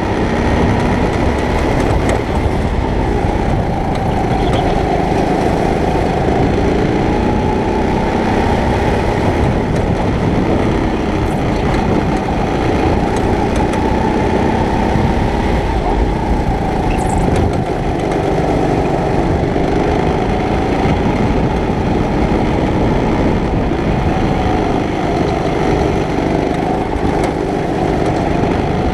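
Go-kart engine heard from on board the kart at racing speed, running continuously with its pitch rising and falling as the driver goes on and off the throttle through corners and straights.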